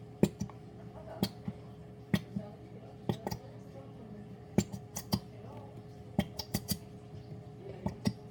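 Irregular sharp clicks and light taps of plastic being handled as glitter glue is squeezed from its bottle into a small container, over a faint steady hum.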